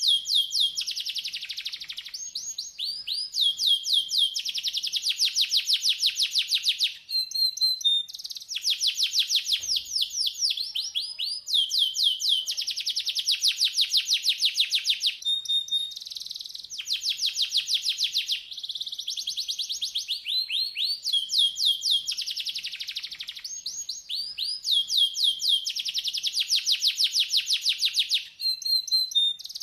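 Domestic canary singing: long, fast trills of rapidly repeated high down-slurred notes, each roll lasting a few seconds, separated by short pauses and brief single whistled notes.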